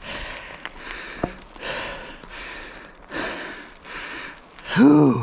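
Hard breathing, in and out about every half second. Near the end comes a short voiced sound that rises and falls in pitch.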